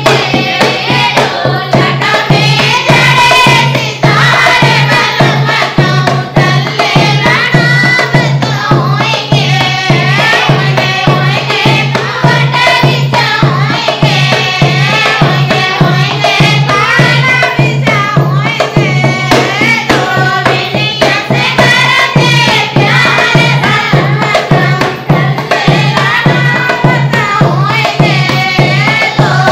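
Indian dehati folk dance song: a singing voice over a steady drum beat.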